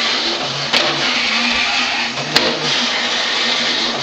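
Battery-powered walking mechanism of a 1962 Ideal Gaylord basset hound toy running, its motor and gears whirring steadily. Two sharp clicks come about a second and a half apart as the mechanism cycles.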